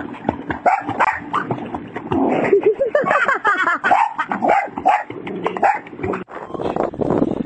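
Boxer dog barking and yipping over and over while swimming, with water splashing around it.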